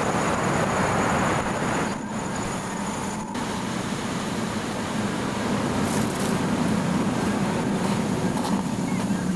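Sea surf on the beach: a steady roar of breaking waves, a little louder near the start and easing briefly around two to three seconds in.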